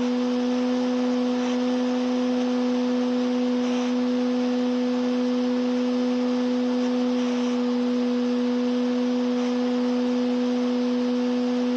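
Electric motor and propeller of an E-flite Cessna 150 RC model plane running at a steady throttle in flight: a constant, even-pitched whine with a hiss of rushing air.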